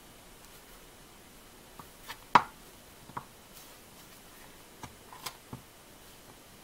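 Handling noise as gloved hands seat a rubber seal on a plow light housing: a few scattered light clicks and knocks, the loudest about two and a half seconds in.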